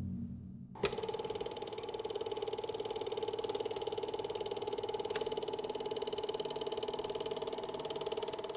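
Film projector running: a rapid, even mechanical clatter with a steady hum under it. It starts suddenly about a second in and fades out near the end. Before it, the tail of a deep boom dies away.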